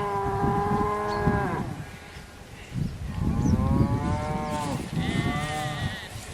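Cows mooing. A long low moo ends about one and a half seconds in, a second moo that rises and falls in pitch follows about a second later, and a shorter, higher, wavering call comes near the end.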